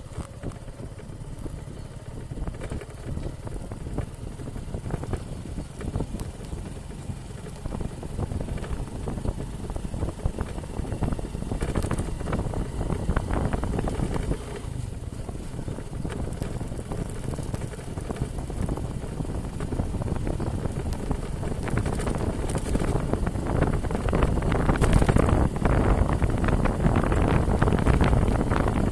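Off-road motorcycle running while being ridden, with wind buffeting the microphone. It grows louder toward the end.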